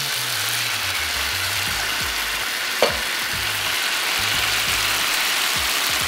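Diced tomatoes and sautéing onions and garlic sizzling in a hot cast-iron skillet, a steady frying hiss. There is one sharp clack about three seconds in, with handling noises as the tomatoes are pushed around with tongs.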